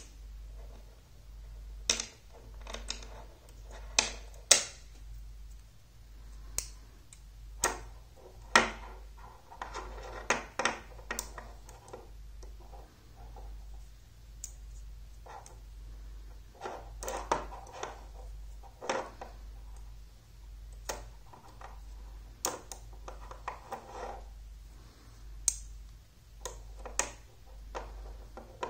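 Magnetic rods snapping onto steel balls and against each other in sharp metallic clicks, coming irregularly every second or few, with quieter rattling and handling between them, over a low steady hum.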